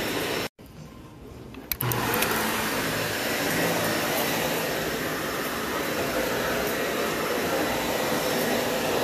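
Dyson ball upright vacuum cleaner running over shaggy carpet. The sound drops out abruptly about half a second in and comes back at full level just before two seconds in, with a couple of clicks.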